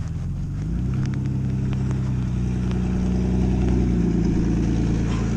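Jeep Cherokee's engine running as it drives slowly across the field, its pitch stepping up about a second in.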